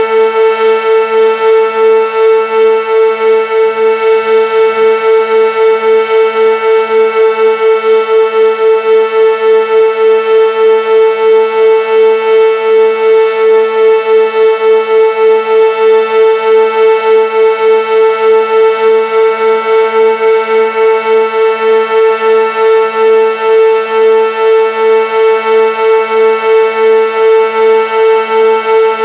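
Sentry 16V1T-B electromechanical tornado siren sounding the full-alert signal: one steady, high tone held at constant pitch, its level pulsing evenly about three times a second.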